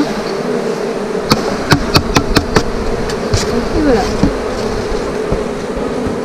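Honey bees humming steadily around an open nucleus hive, with a bee passing close by about four seconds in, its buzz falling in pitch. Between about one and a half and two and a half seconds in, a quick run of about six sharp knocks.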